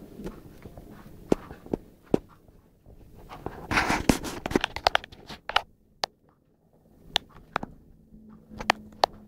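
Scattered sharp clicks and knocks, with a brief rustle about four seconds in as a cat rolls onto its side on a woven rug.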